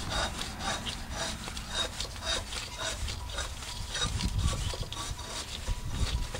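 A/C compressor clutch on a 1994 Buick Roadmaster being turned by hand with the engine off, giving a rhythmic rubbing squeak about three times a second. The owner takes this for the source of the car's squeaky noise.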